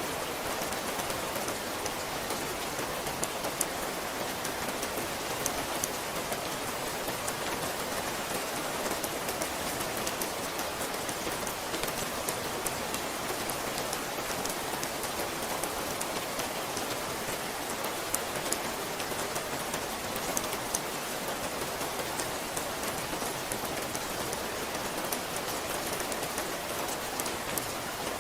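Steady rain falling on a surface, with many small sharp drop patters over an even hiss.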